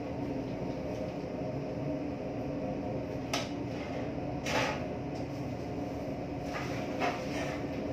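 Steady low mechanical hum, with a few short knocks, the clearest about three and a half and four and a half seconds in.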